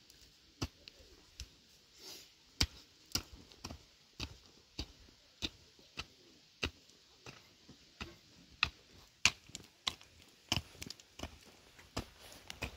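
A hand tool chopping or striking in a steady rhythm, about three sharp blows every two seconds, some harder than others.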